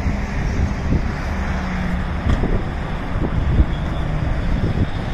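Tow truck engine running steadily, with a held low hum, mixed with road traffic noise and wind buffeting the microphone in irregular low thumps.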